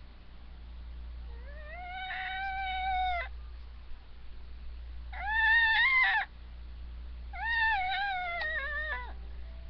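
A cat meowing three times in long, drawn-out calls that rise at the start. The middle meow is the shortest and loudest.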